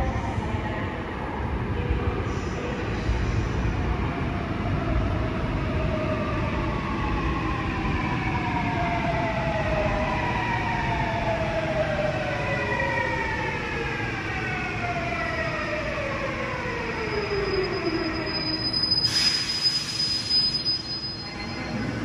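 Seoul Subway Line 8 electric train arriving and braking to a stop in an underground station: a running rumble under a whine of several tones that falls steadily in pitch as the train slows. It ends with a short hiss of air about 19 seconds in as the train comes to rest.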